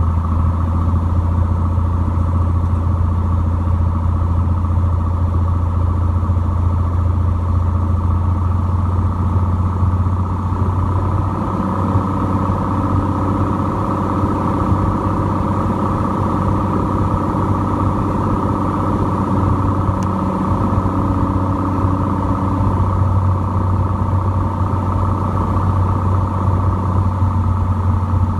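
Cessna 182T's six-cylinder Lycoming piston engine and propeller droning steadily, the note shifting slightly about twelve seconds in.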